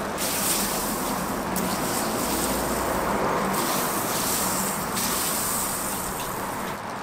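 Butter sizzling steadily on a hot flat-top griddle as a block of butter is rubbed across it and slices of white bread are laid in it.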